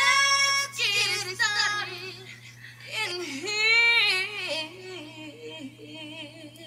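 Music with a high female singing voice, holding long notes whose pitch wavers.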